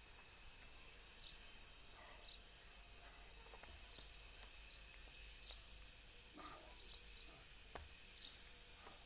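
Faint background hiss with a bird repeating a short, high, falling chirp every one to two seconds, and a few soft clicks.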